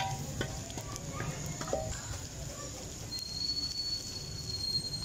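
Garlic, cumin and chillies frying in hot oil in a wok over a gas-cylinder burner for a tarka, stirred with a wooden spoon, with a few clicks of the spoon against the wok in the first couple of seconds. A thin steady high whistle starts about three seconds in and lasts nearly two seconds.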